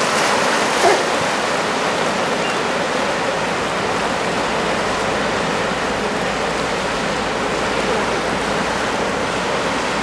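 Ocean surf of about 1.5 m breaking, a steady, even wash of water noise, briefly louder about a second in.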